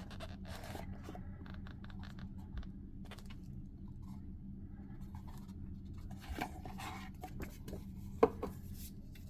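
Handling noises from unboxing a wristwatch: light clicks, scratches and rustles as the watch and its box and packaging are handled. A sharper click comes about eight seconds in, over a steady low hum.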